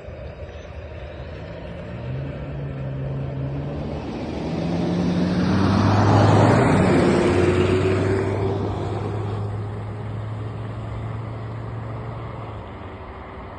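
A motor vehicle drives past close by. Its engine grows louder to a peak about six seconds in, then fades away with a steady low hum.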